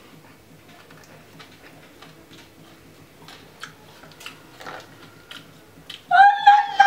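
Faint, uneven ticking clicks over low room noise. About six seconds in, a high voice starts singing loudly, holding one note.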